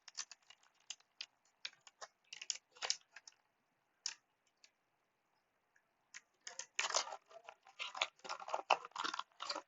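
Foil Pokémon booster pack handled and torn open: scattered crinkles and clicks, then a dense stretch of crinkling and tearing in the last three seconds.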